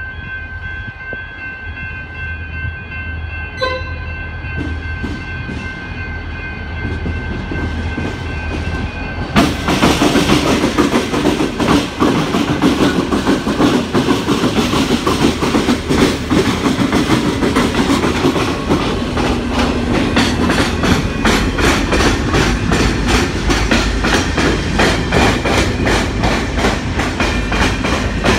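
Two VL class diesel locomotives hauling a container freight train. At first a steady low engine drone runs under high steady tones, with a short sharp tone about four seconds in. At about nine seconds the sound jumps as the locomotives reach the crossing: a loud engine rumble with fast, rhythmic wheel clatter over the rail joints and the tram-track crossing.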